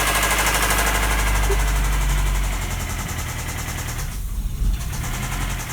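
Toyota 5S-FE 2.2-litre four-cylinder engine running with a rapid knock and valvetrain clatter: rod knock from having been run out of oil. The clatter eases for a couple of seconds past the middle and picks up again near the end.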